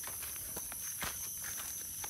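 Steady high-pitched chirring of night insects, with two faint taps about half a second and a second in.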